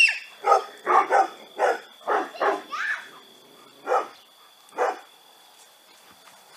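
Golden retrievers barking: a quick run of short barks, then two more spaced out, stopping about five seconds in.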